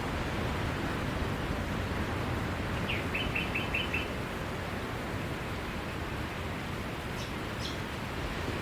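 Steady wash of ocean surf. A bird cuts through with a quick run of about six short high chirps about three seconds in, and gives a few more calls near the end.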